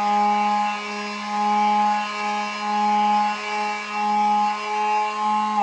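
Electric palm sander running with a Scotch-Brite pad over rusty metal wetted with WD-40, scrubbing off rust. Its steady hum swells and dips as it is pushed back and forth. At the very end it is switched off and its pitch starts to fall as the motor winds down.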